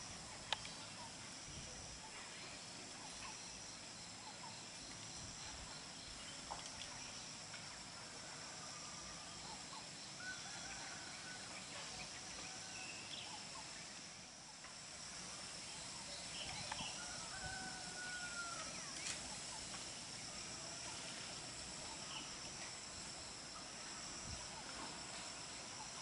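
Forest ambience: steady high insect trilling with scattered short bird chirps and calls, and a single sharp click about half a second in.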